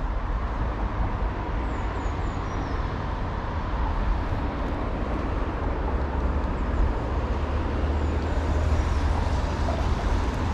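Steady rumble of road traffic from a nearby road bridge, as an even low roar with no breaks. Faint short high chirps come through about two seconds in and again near the end.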